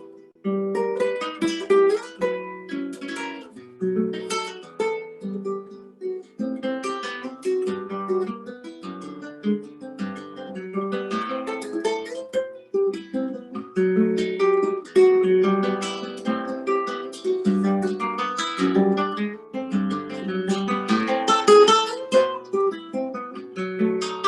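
Solo acoustic guitar playing a waltz, with plucked melody notes mixed with strummed chords.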